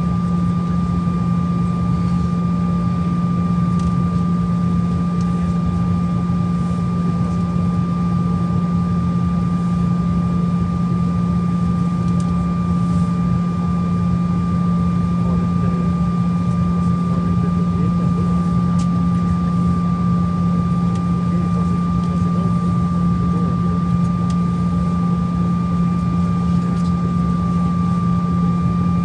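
Airliner cabin noise while taxiing on the ground: a steady engine hum with a steady high whine over it.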